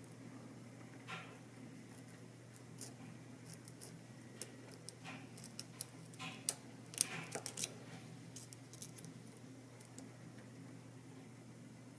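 Lock pick scraping and clicking against the sliders inside a Vidmar slider lock: a scatter of small metallic ticks that bunch together and are loudest a little past the middle.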